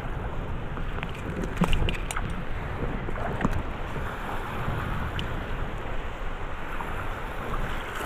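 Wind buffeting the microphone over choppy lake water, with small waves splashing. A few faint clicks come between about one and a half and three and a half seconds in.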